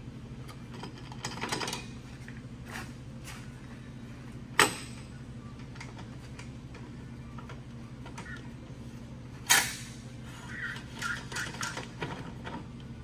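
Metal transmission parts clinking and knocking as a two-wheel-drive output shaft is worked into a 4L60E transmission case, with two sharp metallic knocks about four and a half seconds in and again about five seconds later, and lighter clinks near the end. A steady low hum runs underneath.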